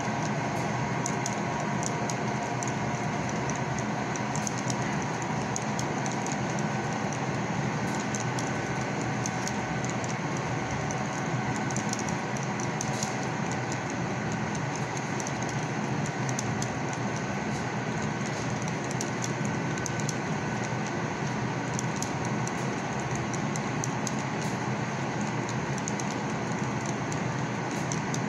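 Model train freight cars rolling along the layout track: a steady rolling rattle of small wheels, with scattered light clicks as they cross the rail joints.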